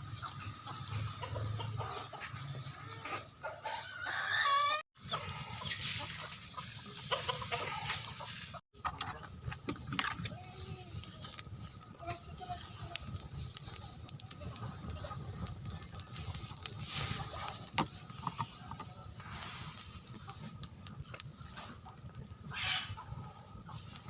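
Chickens clucking, with a loud rooster crow about four seconds in. The sound cuts out briefly twice, around five and nine seconds in.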